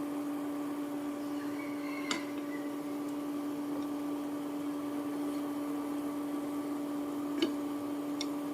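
Steady electric hum from a running kitchen appliance, with a light clink about two seconds in and another near the end.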